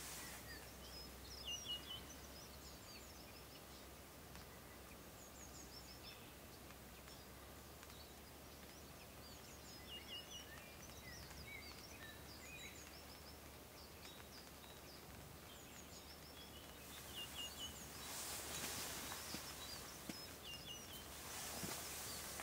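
Faint ambience with many short, high chirps of small songbirds calling in the background, scattered every few seconds. Near the end come two brief rushes of noise.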